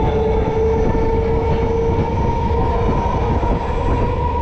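Electric multiple unit suburban train running, heard from inside the coach: a steady rumble of wheels on rail, with a whine that rises slightly in pitch as the train gathers speed.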